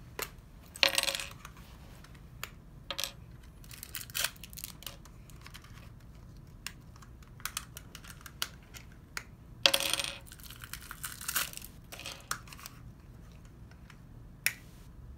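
Plastic wrapper being peeled and torn off a hard plastic LOL Surprise Confetti Pop ball: light clicks and taps on the plastic shell, with bursts of crinkling about a second in and a longer stretch around ten seconds in.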